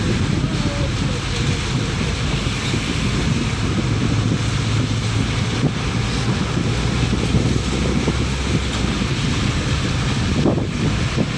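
Wind buffeting the microphone over the wash of sea surf, with a low steady hum for a few seconds in the middle.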